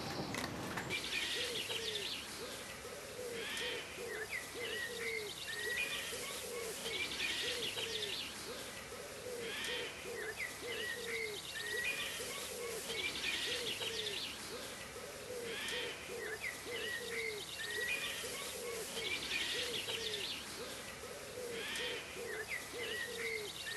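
Birds calling: runs of short, low, falling notes with higher chirps above them, the pattern repeating very regularly about every two seconds.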